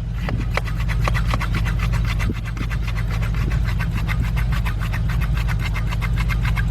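A machine running steadily, a low hum with a fast, even ticking of about eight pulses a second.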